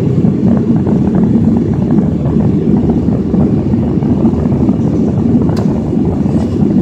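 Steady, deep cabin noise inside a jet airliner climbing after takeoff: engine and airflow noise. A single short click comes about five and a half seconds in.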